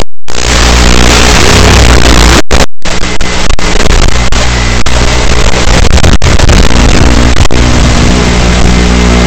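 Small FPV racing quadcopter's motors and propellers heard loud and distorted through its onboard camera. The sound cuts out briefly three times in the first three seconds, then turns rougher and more uneven as the quad lifts off the grass and flies.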